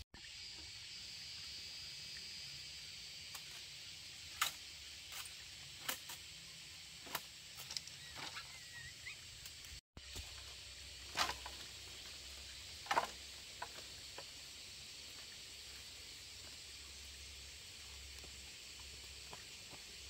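Outdoor ambience: a steady high hiss, broken by a scattering of short sharp clicks and knocks, the loudest two about halfway through and a little after.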